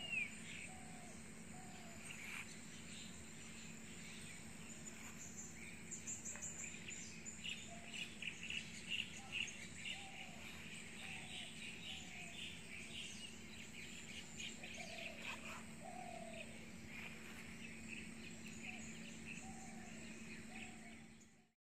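Forest birds chirping and calling, with many short high chirps and scattered lower short calls over a steady low hum; the sound fades out near the end.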